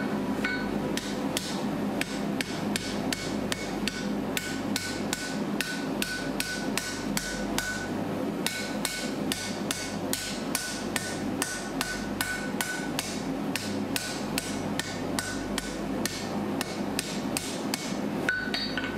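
Rounding hammer striking hot steel on an anvil in a steady rhythm, about three blows a second, many of them followed by a short ring from the anvil.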